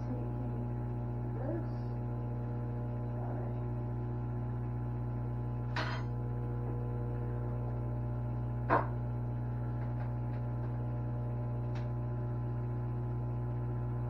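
Microwave oven running with a steady electrical hum, during a 12-minute cook of tortellini and couscous. Two short sharp taps come about 6 and 9 seconds in.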